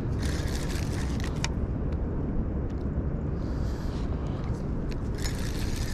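Carp fishing reel being wound in short bursts while a hooked carp is played on a bent rod: a fine whirring, ticking hiss for about a second near the start and again near the end, over a steady low rumble.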